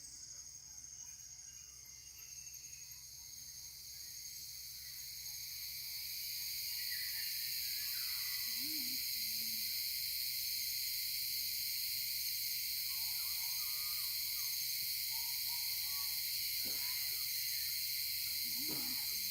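Tropical forest insect chorus: a steady, high-pitched shrill drone that swells over the first several seconds and then holds. A few faint, short animal calls sound beneath it.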